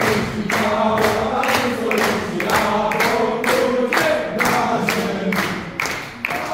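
A group of teenage boys singing together in unison, with hand claps keeping a steady beat of about three to four claps a second.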